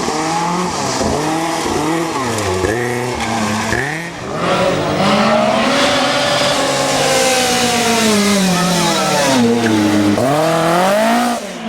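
Lancia 037 Group B rally car's supercharged four-cylinder engine revving hard. In the first few seconds the pitch repeatedly climbs and drops with gear changes and lifts. After a short break about four seconds in, there is one long rise and fall in pitch, then the revs climb again near the end.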